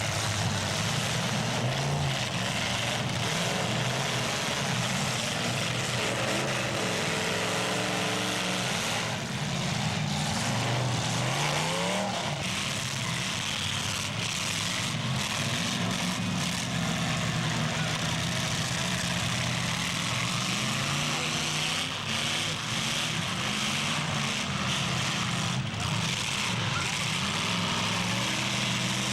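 Several big demolition derby cars' engines running and revving together, their pitch rising and falling, with a few sharp crashes of cars hitting each other.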